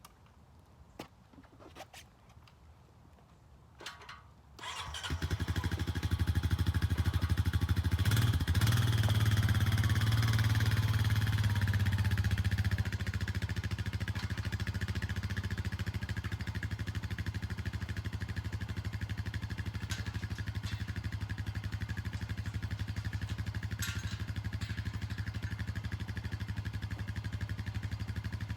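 A few faint clicks, then an engine starts about five seconds in and runs steadily. It is louder for the first several seconds, then settles to a slightly lower, even running.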